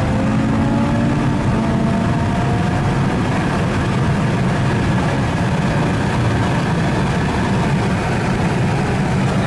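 Audi RS3's turbocharged five-cylinder engine heard from inside the cabin under hard acceleration at highway speed, mixed with loud road and wind noise. The engine note rises in pitch over the first couple of seconds, then holds steady.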